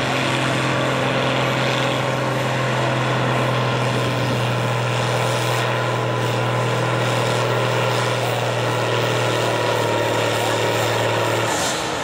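Farm stock pulling tractor's engine running flat out under load as it drags a weight-transfer sled, one steady low drone with no change in pitch. Near the end the drone stops and the sound begins to die away: the throttle comes off as the pull ends.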